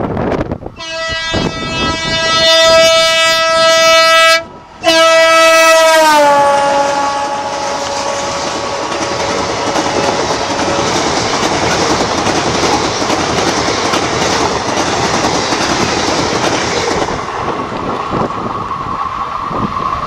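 A WDG3A ALCO diesel locomotive sounds its air horn in several loud blasts, the last one dropping in pitch as the locomotive passes close by. Then its train of passenger coaches rumbles and clatters past over the rail joints, easing off near the end.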